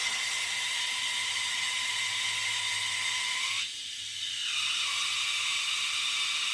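Water hissing steadily from a hand-held hose spray nozzle as the jet strikes a small model turbine's propellers and housing. The spray weakens briefly a little before halfway, then comes back up.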